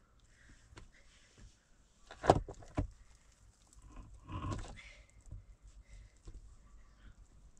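A few sharp knocks, the loudest a little over two seconds in with another half a second later, then a short rough scraping clatter about four and a half seconds in, among scattered small clicks.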